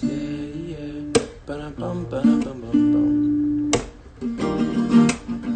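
Acoustic string instrument being strummed, a few chord strums with the notes left ringing and fading between them.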